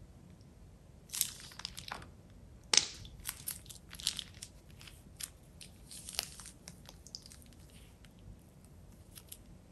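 Plastic piping bag crinkling and crackling as it is squeezed and crumpled in the hand. A flurry of sharp crinkles starts about a second in, with one louder crackle in the middle, and it dies away, leaving a couple of crinkles near the end.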